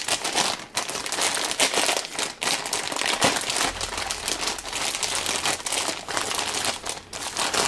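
Clear plastic bag crinkling and rustling continuously and irregularly as it is handled and opened.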